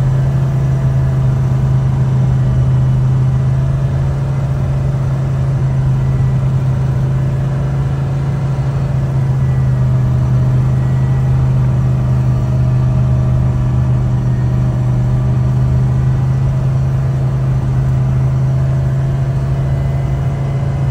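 Tucker 1544 Sno-Cat's engine running steadily under way on a snow trail, heard from inside the cab as a loud, even low drone that holds one pitch throughout.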